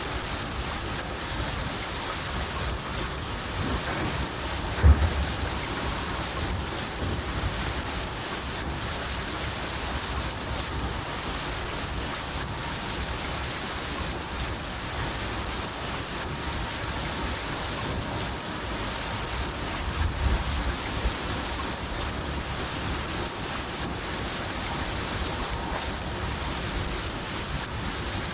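Crickets chirping in a steady rhythm of high chirps, a few a second, breaking off briefly twice, over the steady hiss of rain. Low rumbles of thunder come about five seconds in and again about twenty seconds in.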